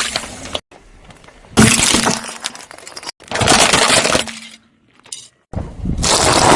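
Brittle objects cracking and shattering under a car's tyre, with glassy crunching and clinking. The sound comes as four separate crushing stretches that start and stop abruptly, with a short near-silent gap before the last one.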